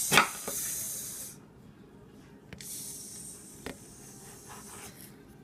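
A heated kitchen knife cutting through a banana on a stone countertop: a sharp knock of the blade against the counter just after the start, then a high hiss lasting over a second, and a second, quieter hiss from about two and a half seconds in.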